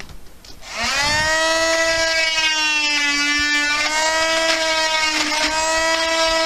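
Electric oscillating multi-tool starting up about a second in and running with a steady whine as its blade cuts through synthetic thatch, the pitch sagging slightly now and then under load.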